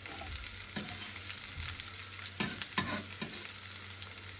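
Chopped red onion and garlic sizzling in hot oil in a frying pan, sautéed until fragrant and soft. A steady sizzle, with a few sharp clicks and knocks of a utensil on the pan.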